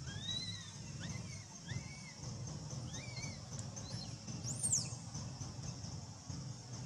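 Baby long-tailed macaque giving a series of short, arching coos, about five in the first three seconds, then a higher, louder squeal about four and a half seconds in.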